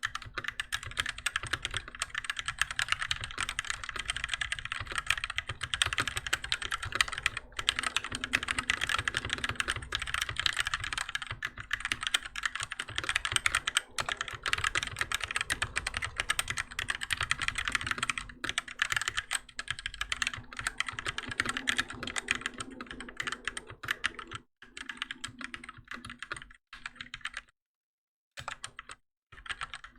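Fast continuous typing on a Keychron K6 mechanical keyboard with Gateron Red linear switches: a dense stream of key clicks and bottom-outs, breaking off in a few short pauses near the end.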